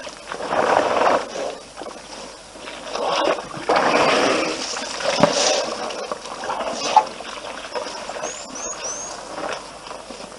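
African elephants drinking at a waterhole: water sloshing and splashing in bursts as they draw it up in their trunks. A small bird chirps three times in quick succession near the end.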